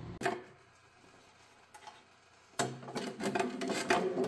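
Metal engine parts being handled on a workbench: a single knock, a quiet pause with one small click, then a run of clattering and scraping in the last second and a half.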